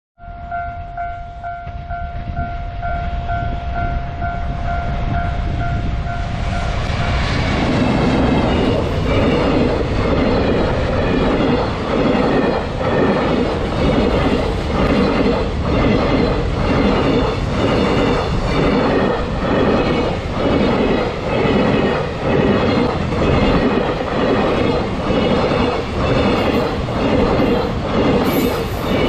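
Japanese level-crossing alarm ringing in a steady pulsing tone as a freight train hauled by an EF210 electric locomotive approaches. From about seven seconds in, the long train of wagons passes close by, its wheels clacking over the rail joints a little more than once a second, with a brief high wheel squeal near the end.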